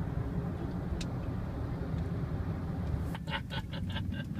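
Road and engine noise inside a car cruising on a highway: a steady low rumble. About three seconds in it gives way to a quick run of six or seven short, pitched pulses, about five a second.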